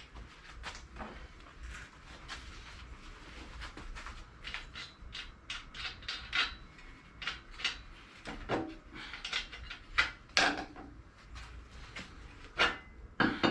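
Irregular knocks, clicks and clunks as a stuck part of a Briggs & Stratton lawn mower is worked loose with a 'persuader' after heating. A few louder knocks come in the second half.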